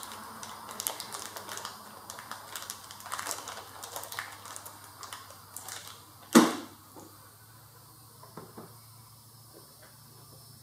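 Small hard parts clicking and rattling as new retaining pins are picked out by hand, with one sharp knock about six seconds in; after that only a couple of faint clicks.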